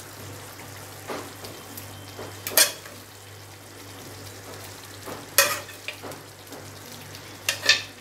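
Fried chicken pieces dropped one at a time into green gravy at the boil, four splashes about two seconds apart, the last three the loudest, over the steady bubbling of the gravy in the kadhai.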